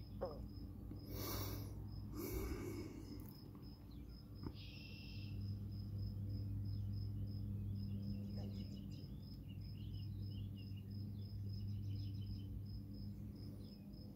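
An insect, likely a cricket, chirping steadily with an even high pulse of about three chirps a second, over a faint low steady hum. Two brief rustling noises come about a second and two seconds in.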